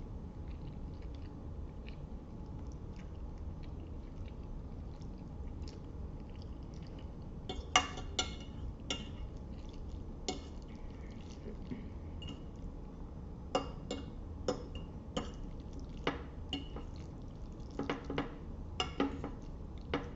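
Close-miked eating of spaghetti in meat sauce: scattered wet mouth clicks and smacks, with a few sharper clicks that come closer together in the second half, over a steady low hum.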